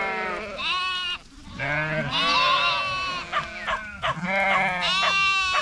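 A flock of sheep with lambs bleating, many calls overlapping one after another as the flock walks.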